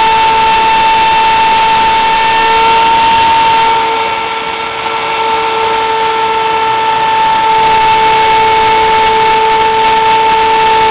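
Homemade CNC mill running, its spindle and small cutter machining a wooden board: a loud, steady whine over a hiss of cutting noise. The level dips briefly about four to five seconds in.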